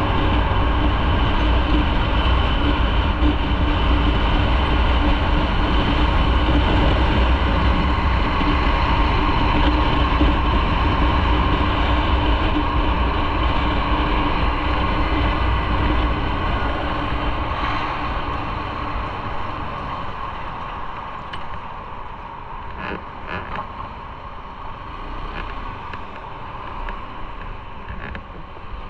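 Motorcycle riding at speed: steady engine drone under heavy wind rush on the microphone, easing off and getting quieter about two-thirds of the way through as the bike slows.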